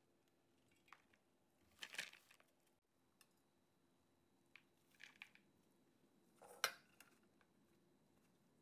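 Mung bean sprouts being scooped by a rubber-gloved hand and dropped into a bowl: faint crisp rustling in a few short bursts, the loudest about two-thirds of the way through.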